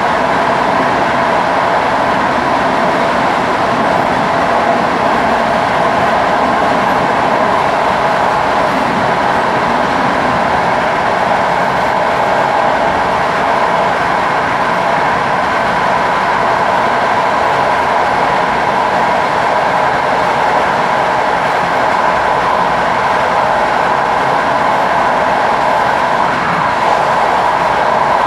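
Passenger train running at a steady speed: a continuous, even running noise from the wheels and running gear on the track.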